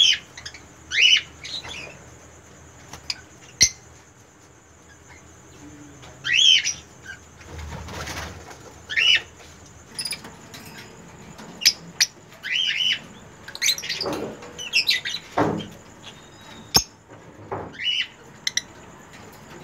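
Caged lovebirds giving short, sharp chirps every second or two, with a few sharp clicks and a brief rustle about eight seconds in.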